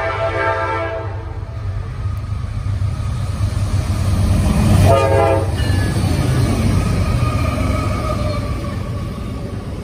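Norfolk Southern freight train with three diesel locomotives approaching and passing close by. The locomotive's air horn sounds a chord that ends about a second in, then gives one short blast about halfway through as the lead engine goes by. Under the horn are the engines' low rumble and the rolling of the container cars on the rails.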